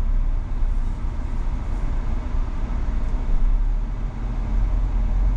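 Steady low rumble of a car being driven, engine and road noise heard from inside the cabin.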